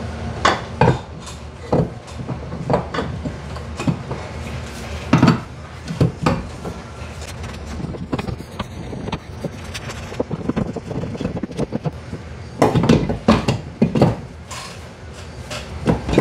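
Irregular metal knocks and clanks from an automotive A/C compressor being pried with a screwdriver and worked loose from its mounting and alignment pins, over a steady low hum. The knocks come more thickly near the end.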